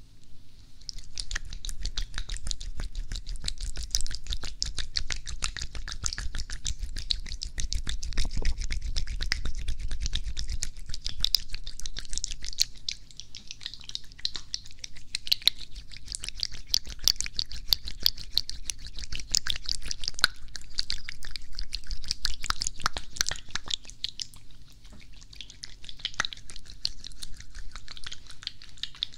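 Hands rubbing together and brushing over the ears of a binaural microphone, right up against it: a dense, close crackling of skin friction made of fast small clicks, with a low rumble from the microphone being handled about eight to ten seconds in.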